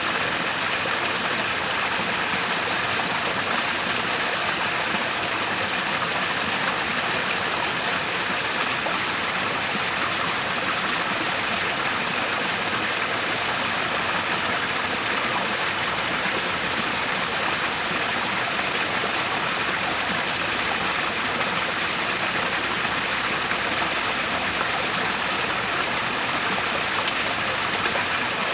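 Waterfall and river water rushing steadily, an even splashing hiss with no breaks or changes.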